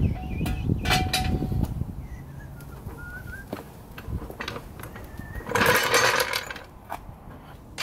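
Tools and equipment being moved and handled: a low rattling rumble at first, scattered clicks and knocks, and a short clatter about six seconds in.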